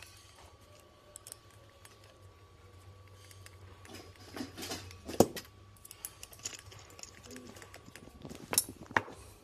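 Metal and plastic parts being handled: small clinks and scrapes as a metal rod is worked through the hole in an umbrella's plastic hub and aluminium pole. One sharp knock comes about five seconds in, and a few more clicks near the end.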